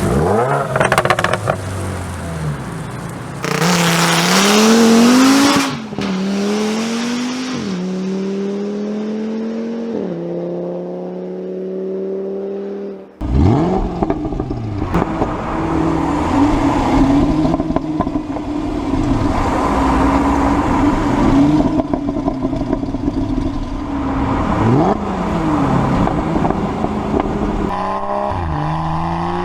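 Performance car exhaust under hard acceleration, the pitch climbing and dropping at each of several upshifts. After a sudden cut about 13 seconds in, another car's engine runs at a steady speed with a few short revs, and a further clip begins near the end.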